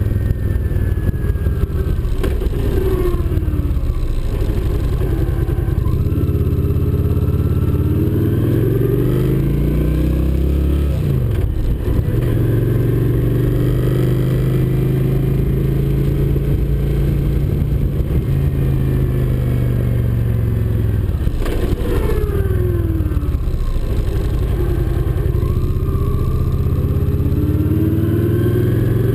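Motorcycle engine running on the move, picked up close from a windshield-mounted camera. The revs climb as it speeds up, fall sharply about a third of the way in as it shifts up, hold steady, sink as the bike slows about two-thirds through, then climb again near the end.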